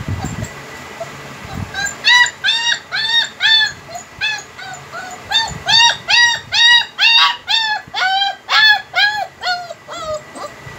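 German Shepherd puppies whining: a run of short, high-pitched cries, each rising and falling, two or three a second, starting about two seconds in and stopping near the end.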